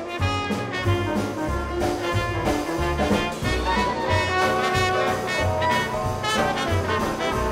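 Background music: an upbeat jazzy tune with brass instruments over a steady beat.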